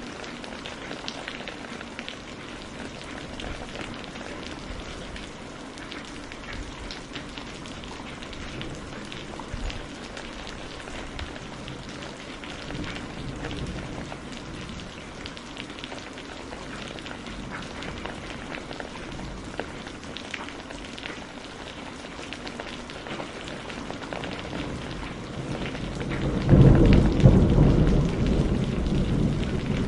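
Steady rain falling, with close patter of drops. Near the end a loud, deep rumble of thunder swells in.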